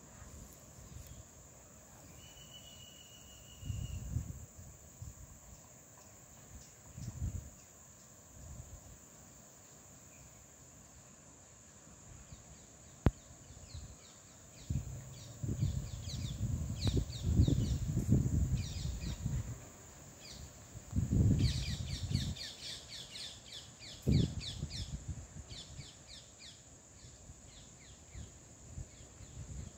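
Lakeside forest ambience: a steady high insect drone runs throughout. In the second half there is a string of short, repeated bird calls. Several loud, noisy low rumbles come and go, the strongest about halfway through.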